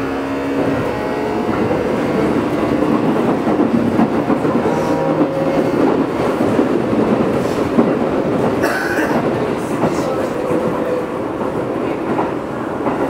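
Keio 8000 series train running, heard from inside the car directly above its Hitachi GTO-VVVF inverter. The inverter's magnetic whine comes through as short steady tones that change pitch in steps, clearest in the first few seconds, over continuous wheel-and-rail noise.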